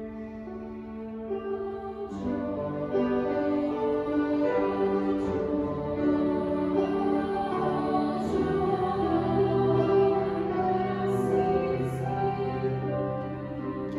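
Girls' choir singing a slow piece with cello accompaniment, the voices swelling fuller and louder about two seconds in.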